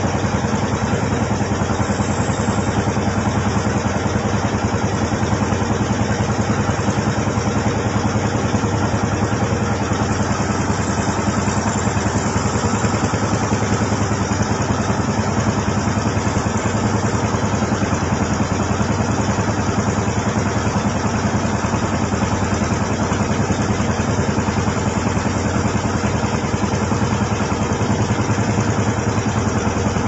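Pompong (wooden cargo motorboat) engine running steadily with an even, fast pulse as the boat moves under way with a load of logs.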